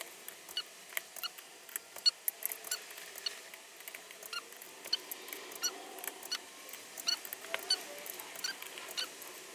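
Torque wrench rechecking the Honda EP3 gearbox case bolts in sequence: a run of light, irregular metallic ticks and clicks, several a second. The bolts are already at torque, so the wrench clicks as it is set on each one.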